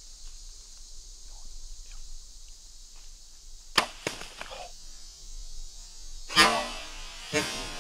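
A compound bow shot with the arrow striking a whitetail buck in one sharp crack, followed by the wounded deer bolting through dry leaves, crashing loudly twice near the end, over a steady high hiss of insects.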